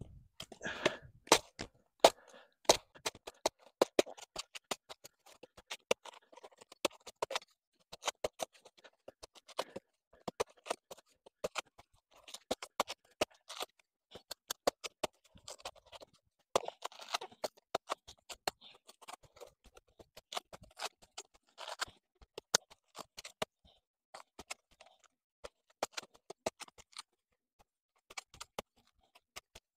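A hand blade cutting into the soft, water-filled trunk of a Sicilian banana (Musa acuminata): a string of sharp, irregular chops and knocks with short scraping sounds between them.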